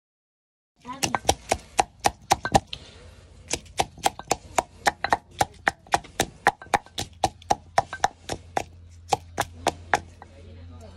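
Pestle pounding soaked dried red chillies in a clay mortar. The sharp knocks come in a steady rhythm of about three to four a second, each with a short ring from the pot, starting about a second in.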